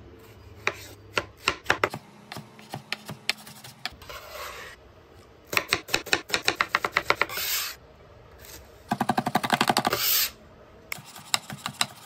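Chef's knife chopping on a cutting board while dicing onion and jalapeño. A few single cuts come first, then two quick runs of rapid chopping at about ten strokes a second, and a few more cuts near the end.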